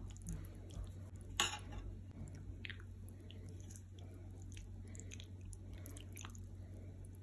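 Fork and spoon twirling saucy spaghetti in a skillet: faint wet squelches and a few light clicks of the utensils, with one sharper click about one and a half seconds in.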